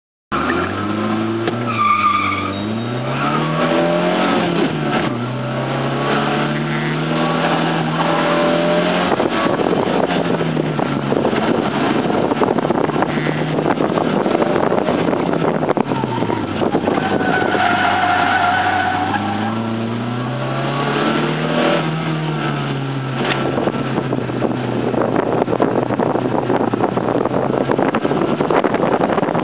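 Fiat X1/9's four-cylinder engine, heard from inside the open-top cockpit, revving up and dropping back again and again as the car accelerates, shifts and brakes around an autocross course. Tires squeal through corners, once near the start and again about two-thirds of the way through.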